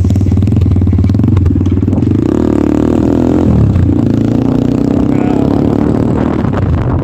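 Kayo T2 dirt bike engine running under way. The revs climb about two seconds in, drop sharply a little later, then hold steady.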